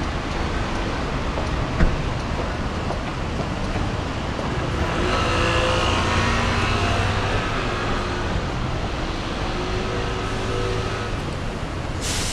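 Road traffic at a busy intersection: a steady wash of car engines and tyres, with a passing vehicle adding a faint whine around five to seven seconds in and a short hiss near the end.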